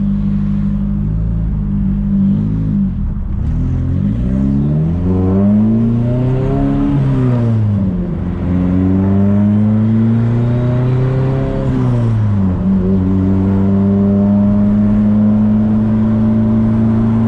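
Turbocharged four-cylinder engine of a Nissan S14 under way. Its revs climb and drop several times through the gears, then hold steady near the end.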